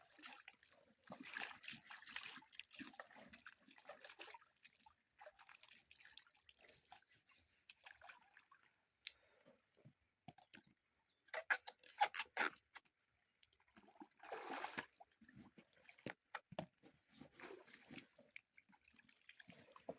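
River water splashing and sloshing in short, irregular bursts as clothes are washed by hand, with a few louder splashes past the middle.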